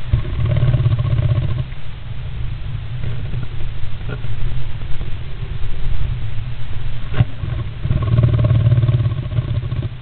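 Great spotted woodpecker shifting and preening inside a wooden nest box: low rumbling scrapes and rustles of feathers and body against the box, loudest in two spells near the start and near the end, with a sharp click about seven seconds in.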